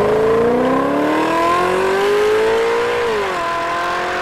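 Car engine revving sound effect: the engine note climbs steadily for about three seconds, drops quickly, then holds a steady lower pitch, with a hiss of noise behind it.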